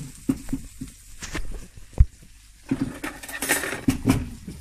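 Kitchen cutlery drawer pulled open and a fork picked out from among the metal spoons and forks: scattered clicks, a sharp knock about two seconds in, then a run of jangling metal clinks.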